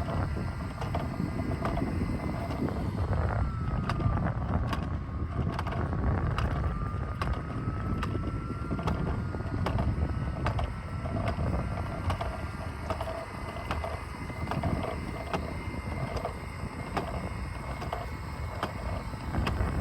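Wind buffeting the microphone in a steady low rumble, over a faint high whine that drifts slowly in pitch, with scattered light clicks.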